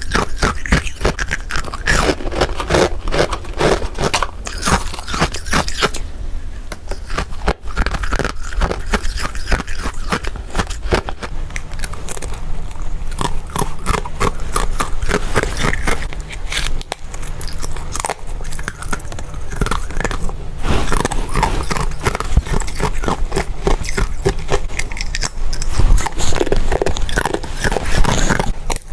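Rapid, close-up biting and crunching of freezer frost, dense crackly crunches one after another with only brief pauses.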